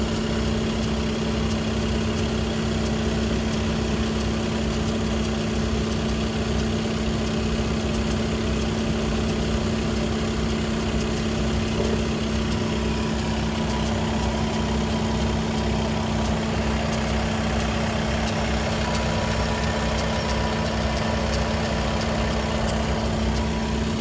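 Skoda Octavia RS 2.0 TDI four-cylinder diesel idling with the strange noise from its DSG gearbox that appears once engine and gearbox are at normal hot temperature: a steady hum, with a fainter higher tone joining about halfway. Its cause is unknown; a Skoda workshop could not determine it.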